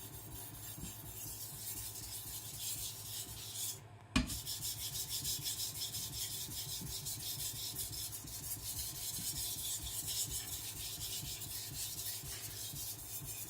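Steel knife blade scraping back and forth on a wet Naniwa Professional 1000 whetstone in quick, steady sharpening strokes. There is a short break and a sharp knock about four seconds in, then the strokes carry on.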